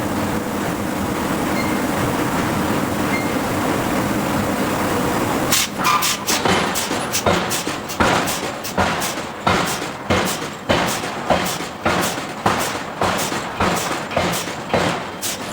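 Hydraulic forging hammer: a steady machine drone, then about five seconds in a run of rapid, evenly spaced blows on the steel, two to three a second.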